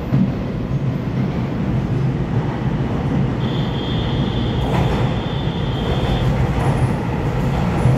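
Taiwan Railway EMU3000 electric multiple unit coming into an underground station, a steady low rumble that slowly grows louder. A thin high squeal runs for about three seconds in the middle, with a sharp click just before the squeal fades.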